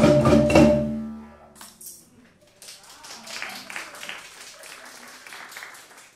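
A marimba band strikes its final chord, which rings out and fades over about a second and a half. Then a small group claps, with a few voices, until it dies away near the end.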